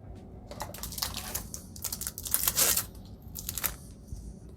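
Yu-Gi-Oh! booster pack's foil wrapper crinkling and tearing as it is opened by hand, in several rustling bursts, the loudest about two and a half seconds in.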